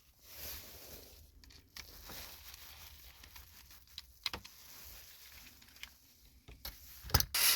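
Faint handling of small plastic toy-train parts, with a few light clicks and a sharper click near the end, as a spare part is taken off an old Trackmaster James engine. A steady noisy sound starts right at the end.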